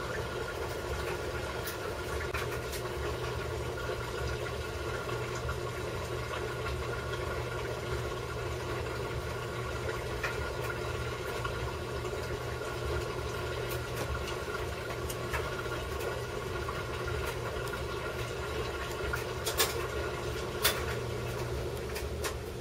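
A laundry machine running with a steady mechanical hum and drone. Two sharp clicks come near the end.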